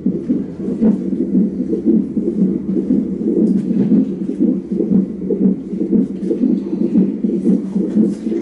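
Fetal heart monitor's Doppler ultrasound playing the unborn baby's heartbeat: a rapid, pulsing whoosh that goes on steadily.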